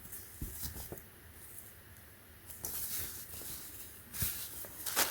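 Faint rustling and a few light knocks as items are handled, growing a little louder in the second half.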